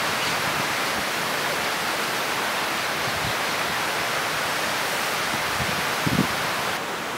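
Steady outdoor rushing noise, even and unbroken, with a brief low thump about six seconds in.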